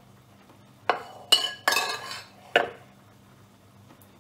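Metal serving spoon clinking against the cookware as glazed carrots are dished up: about four sharp, ringing clinks between one and three seconds in.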